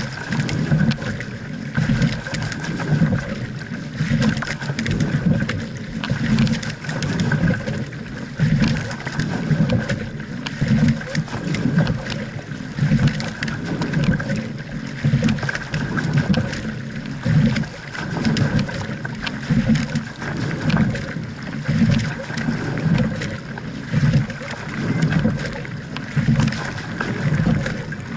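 Rowing double scull under way: water rushing and slapping along the hull, surging about every two seconds with each stroke.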